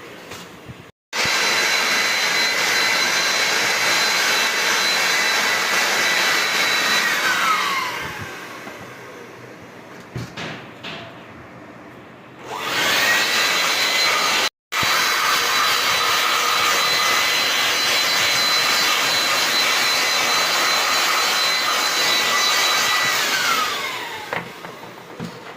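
A high-speed electric tool motor running steadily with a hissing whine. It winds down with a falling pitch when switched off, is started again partway through, and winds down again near the end.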